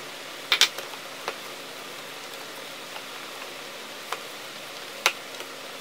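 A hand squeezing and shaping mashed fish-and-potato cutlet mixture in a plastic tub: a few sharp clicks and taps against the plastic over a steady hiss. The loudest is a double click about half a second in, with another about five seconds in.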